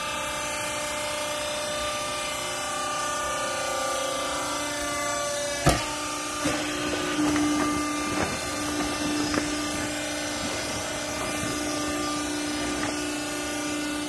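A vertical hydraulic cloth baler's pump motor runs with a steady hum. About six seconds in there is a single sharp click, then rustling and light knocks as a woven bale sack and used clothes are handled.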